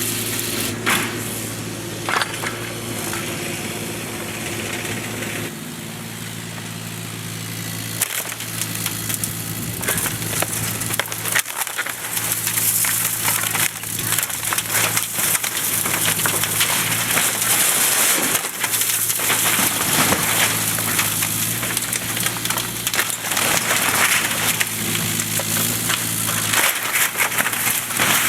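Bobcat 328 compact excavator's Kubota diesel engine running steadily under load while the machine breaks and crushes an old wooden barn, with a dense crackling and crunching of splintering boards and timbers and sharp knocks of wood giving way. The engine note drops for a few seconds early on and again briefly near the middle, and the crunching is heaviest in the second half.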